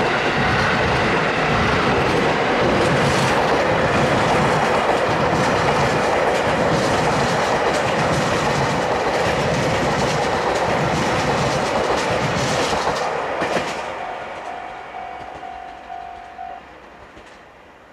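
A train passing close by, its wheels clicking over the rail joints, the noise dropping away suddenly about thirteen seconds in and fading out. A level-crossing warning bell is then heard repeating briefly before it stops.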